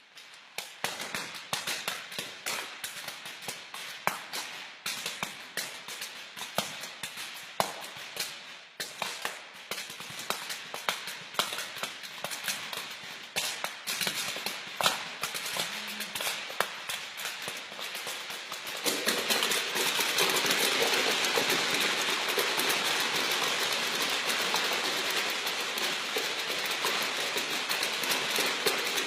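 A group imitating rain by hand: scattered sharp taps and clicks that thicken into a patter, then about two-thirds of the way through a louder, steady rushing like a downpour.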